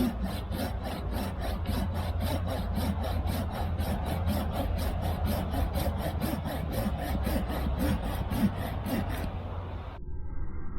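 Silky Pocketboy Outback Edition folding pull saw cutting through wood in fast, even strokes, about four a second, stopping about nine seconds in.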